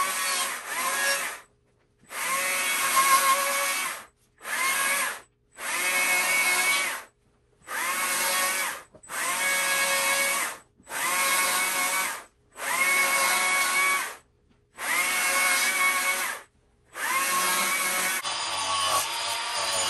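Handheld electric power tool carving wood in about ten short runs of one to two seconds. Each run is a motor whine that rises as the tool spins up, and each ends abruptly in silence. Near the end this gives way to a steadier, rougher rasping against the wood.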